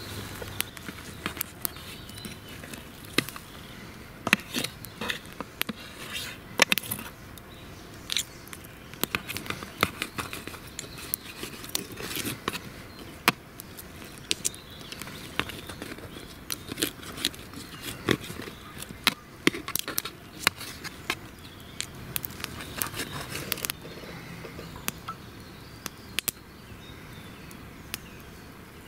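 Ribeye steak crackling and sizzling on a metal pan over a twig-stove fire, with irregular sharp clicks and scrapes of a knife and fork against the pan as the meat is cut.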